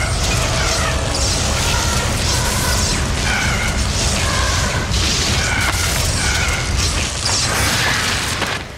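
Film sound effects of a magic blast: a loud, continuous rumbling rush of noise with music beneath. It drops away suddenly near the end.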